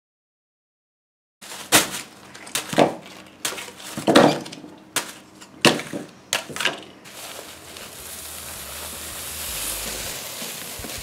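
Silence for about a second and a half, then plastic bags of hop pellets and malt grain crinkling and clattering as they are handled and set down on a counter. From about seven seconds in, a steady rushing hiss of dry malt grain poured into a plastic bucket, growing louder.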